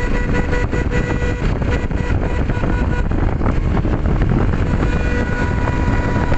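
A motorcycle's engine running while riding, with wind rushing over the microphone. A steady high tone sounds through the first three seconds and again near the end.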